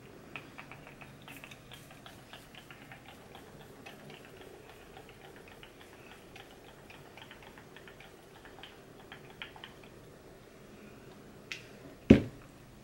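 Faint, irregular soft clicks of a fine-mist setting-spray pump being pressed again and again, the mist itself nearly silent, then one sharp knock near the end.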